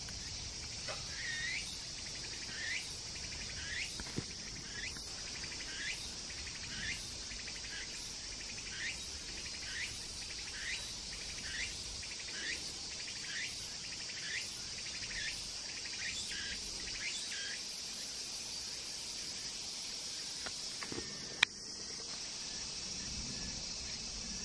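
Outdoor summer ambience: a steady high insect drone, with short rising chirps repeating about once a second for roughly the first two-thirds, then a single sharp click near the end.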